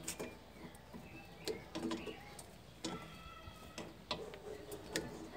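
Pliers clicking against the cotter pin in a rear wheel hub nut as it is worked loose: a few faint, widely spaced metal clicks. Pulling this pin is the first step in taking up play in the rear wheel bearing.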